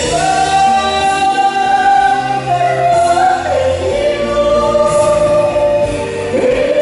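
A woman and a man singing a duet through handheld microphones, holding long drawn-out notes. About halfway through, the melody slides down from a high held note to a lower one.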